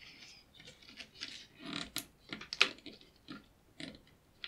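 Irregular small plastic clicks and scrapes from ribbon-cable connectors and their latches being handled on a circuit board, with a few sharper clicks in the second half.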